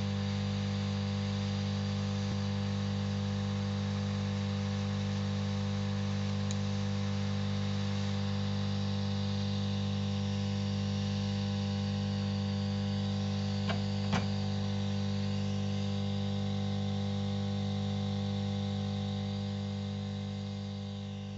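Hot air rework station running: a steady electrical hum with a hiss of blown air, fading out near the end. Two light clicks about 14 seconds in.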